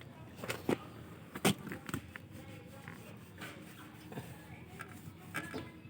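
Scattered, irregular knocks and clicks, the loudest about a second and a half in, over a low background hum.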